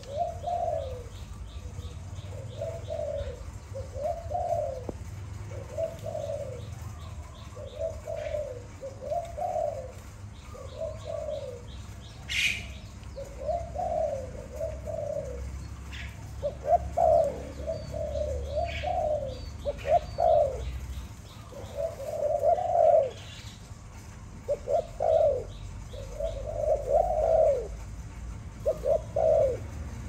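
Spotted dove cooing over and over, short rising-and-falling coos about once a second. Behind it there is fainter high chirping from a small bird, and a few sharp clicks.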